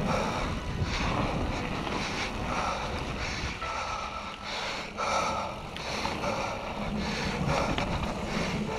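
A mountain biker's heavy breathing while riding, a loud breath about every second, which the rider puts down to a sarcoidosis flare-up. Underneath are a steady rumble of wind on the microphone and tyres on the dirt trail.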